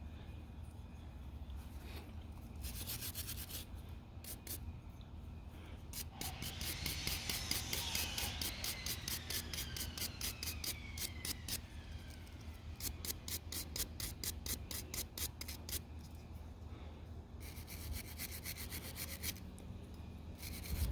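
Hand scrubbing of a blow torch's brass parts to clean off tarnish, in rapid back-and-forth rubbing strokes that come in several runs with short pauses between them.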